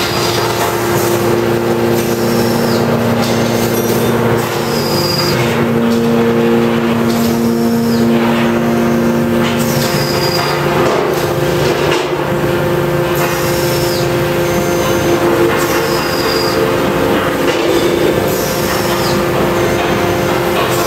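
Hydraulic power unit of a 1000-ton Kawasaki hydraulic stamping press running with a steady hum. Its tone changes about four seconds in and again near ten seconds as the press cycles and the ram rises. Short high squeaks recur every few seconds over the machinery noise.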